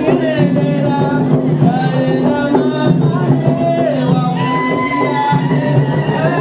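Live Comorian traditional dance music: large barrel drums and a frame drum beat a steady rhythm while voices sing over it.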